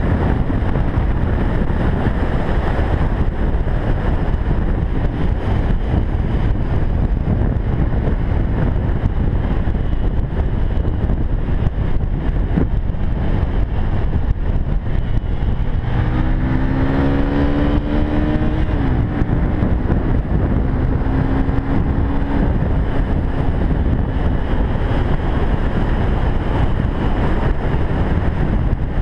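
Motorcycle riding at track speed, heard from an onboard camera: heavy wind rush on the microphone over the engine. About halfway through, a clear engine note rises and holds for several seconds before sinking back into the wind noise.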